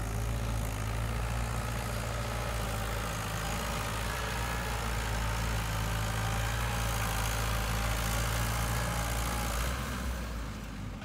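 Diesel engines of a JCB 3DX backhoe loader and farm tractors running steadily at work, a deep even hum that eases off near the end.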